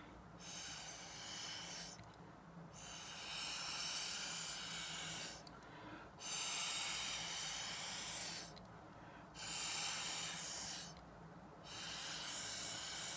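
A person blowing hard on wet watercolour blots to spread the paint across the paper: five long, hissing puffs of breath, each a second and a half to two and a half seconds long, with short pauses to draw breath between them.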